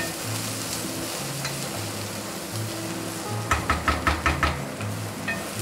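Sliced onions and green chillies sizzling in coconut oil in a kadai while a spatula stirs them. About three and a half seconds in comes a quick run of about eight spatula strokes against the pan, the loudest part.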